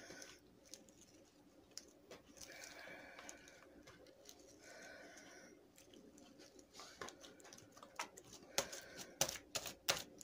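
Sticky blue fluffy slime being kneaded and squeezed by hand, still too sticky, giving faint wet clicks that build into a quick run of louder sharp clicks near the end.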